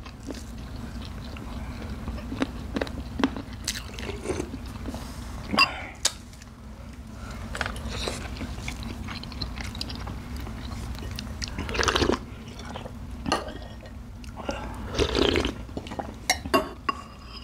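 Close-up eating sounds: chewing and crunchy bites of raw vegetables such as small green Thai eggplants, eaten with rice, with many short clicks and smacks. It gets louder about twelve and fifteen seconds in.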